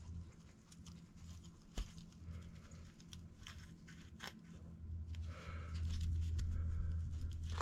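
A paper gasket peeling away as a cover is pulled off a two-stroke motorcycle engine's cylinder: faint tearing and a few small clicks over a steady low hum. The gasket is sticking in one spot.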